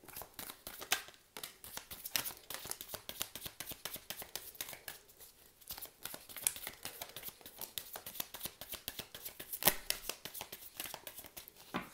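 A deck of oracle cards shuffled by hand: a dense, continuous patter of quick card snaps and slides, with two louder snaps about a second in and near the end.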